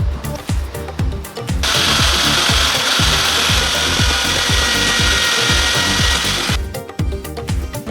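A power tool working on an acrylic tube, running steadily for about five seconds with a faint whine over a rough, hissing grind, then stopping abruptly. Background music with a steady beat plays throughout.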